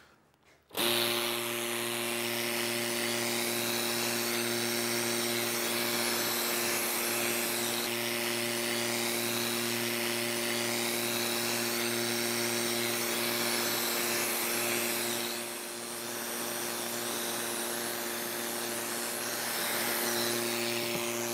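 Electric Gast rotary vane pump, freshly rebuilt, switching on abruptly about a second in and running steadily: a steady electric-motor hum under a loud airy hiss of air being pumped, dipping slightly for a moment about fifteen seconds in. It starts and spins freely, with no rubbing vanes: the sign that the end-plate bolts are not over-tightened.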